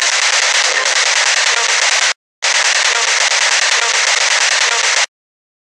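Spirit box radio static: a loud, harsh hiss as the device sweeps rapidly through radio stations. It cuts out abruptly for a moment about two seconds in, then stops suddenly near the end.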